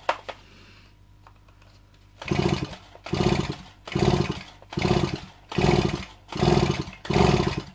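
Stihl MS 170 chainsaw's recoil starter pulled seven times in quick succession, a little more than once a second, starting about two seconds in. Each pull is a short whir as the engine is cranked with the spark plug out to blow excess fuel out of the flooded cylinder.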